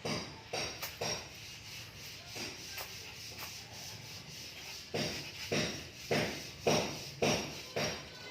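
Kitten raking litter with its paws to cover its droppings: a series of short scraping strokes. A few come in the first second, then after a lull a quicker run of about two a second.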